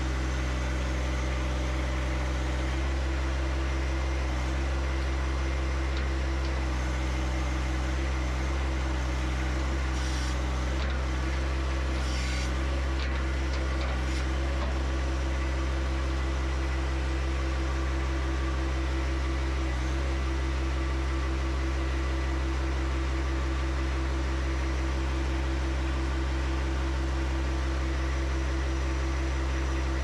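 John Deere 1025R compact tractor's three-cylinder diesel engine running at a steady speed.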